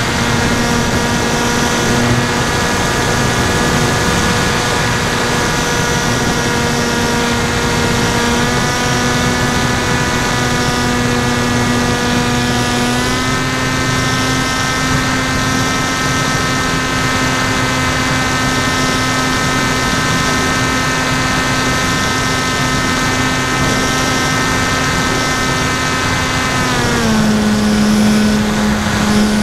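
Electric brushless motor (NTM 2836 1200kv) spinning a 10x5 APC propeller on an FX-61 Phantom flying wing in flight: a steady droning whine. Its pitch steps up slightly about eight seconds in and again around thirteen seconds, then drops near the end as the motor slows.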